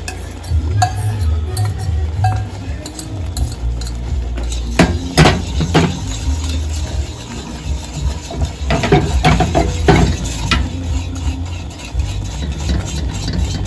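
A metal fork stirring a thickening milk-and-cheese sauce in a stainless steel pan, scraping and clinking against the pan. The clinks come thickest about five seconds in and again around nine to ten seconds, over a steady low rumble.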